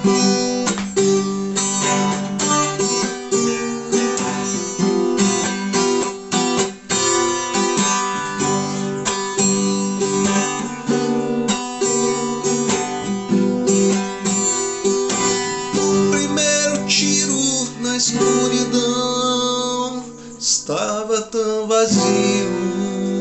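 Acoustic guitar strummed in a steady rhythm: the instrumental ending of a song, tapering off near the end.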